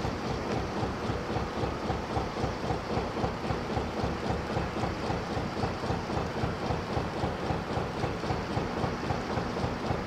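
A narrowboat's traditional Petter McLaren B2 diesel engine running at a steady cruising speed, with an even, regular beat.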